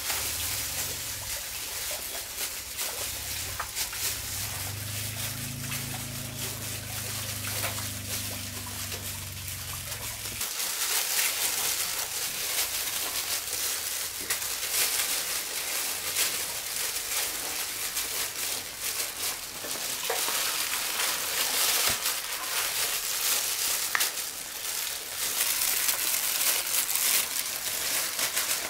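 Plastic-gloved hands crinkling and handling sticky ripe jackfruit flesh, with many small clicks over a steady hiss. A low hum underneath stops abruptly about ten seconds in.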